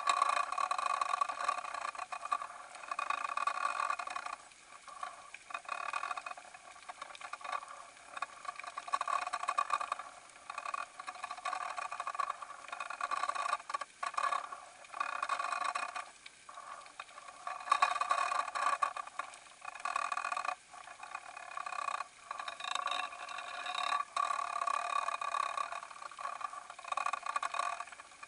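Muffled underwater noise recorded through a fishing-line camera's waterproof housing as it turns in the tide current: a whirring hiss that swells and fades every second or two, with a few brief dropouts.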